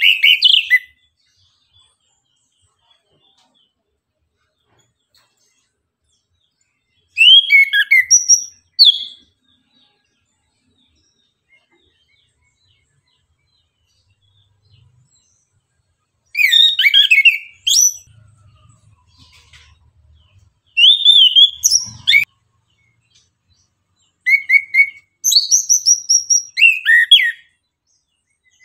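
Chestnut-capped thrush (anis kembang) singing in short bursts of quick, varied whistled notes, about five phrases separated by pauses of several seconds.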